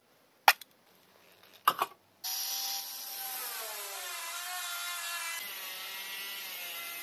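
A few sharp knocks, then about two seconds in a corded angle grinder starts cutting steel, a steady high grinding noise with a pitch that wavers as the disc bites into the metal.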